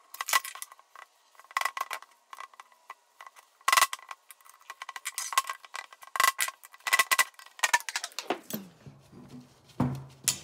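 Cast-metal turbocharger parts and steel tools clanking and clinking against each other and the workbench as the turbo is handled, in irregular sharp knocks. Under the clanks a faint steady tone slides down in pitch about eight seconds in and settles into a low hum.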